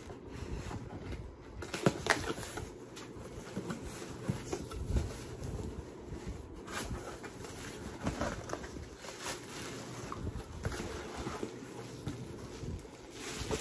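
Packaging being handled and opened: irregular rustling and crinkling with scattered knocks, a couple of sharper knocks about two seconds in.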